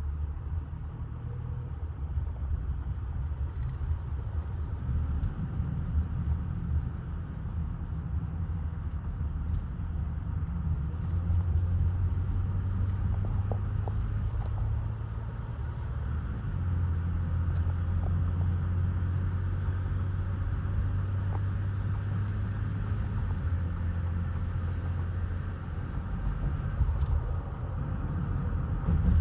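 Car road noise heard inside the cabin while driving at highway speed: a steady low rumble that grows somewhat louder through the middle.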